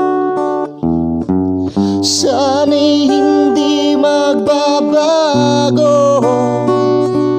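Acoustic guitar strummed in held chords that change several times in the first two seconds, then a man's singing voice comes in about two seconds in over the guitar.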